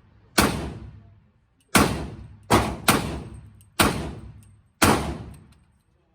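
AR-15 rifle in .300 Blackout fired six times at an uneven pace, two of the shots coming close together near the middle, each shot ringing away over most of a second.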